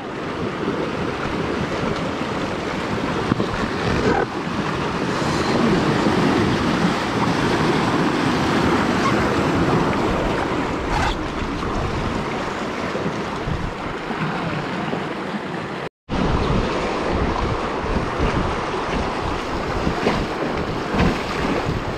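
Whitewater rapids rushing and splashing as an inflatable kayak runs through them, with wind buffeting the microphone. The sound cuts out for an instant about three-quarters of the way through.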